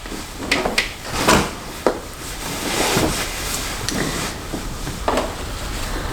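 A free-standing mirror being moved and set down: several light knocks and clatters, with a steady rushing noise coming in about halfway.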